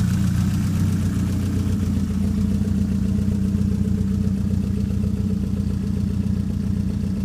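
Toyota Celica GT4's turbocharged 2.3-litre stroker 3S-GTE four-cylinder idling steadily.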